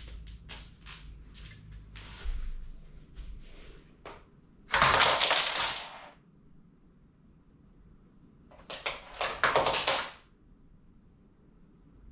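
Plastic Lego pieces clicking and clattering as parts of a track structure break loose and drop. A run of light clicks is followed by two loud bursts of clatter, the second, about nine seconds in, holding several sharp knocks.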